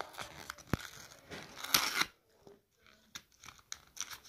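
Cardboard Kinder Schokolade box being handled and pried open by hand: scattered crackles and scrapes of cardboard, with a louder crunchy scrape a little under two seconds in and a short lull after it.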